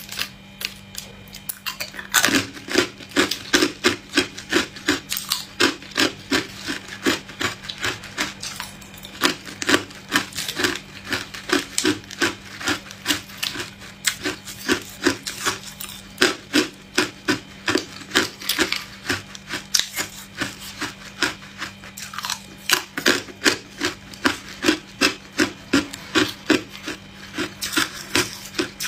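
Hard clear ice being crunched between the teeth close to the microphone: a rapid run of sharp crunches, a few per second, starting about two seconds in.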